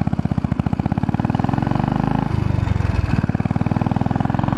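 2002 Royal Enfield Bullet 500's single-cylinder four-stroke engine running under way, its exhaust beats coming as a quick, even pulse. About two and a half seconds in, the sound turns briefly rougher for under a second.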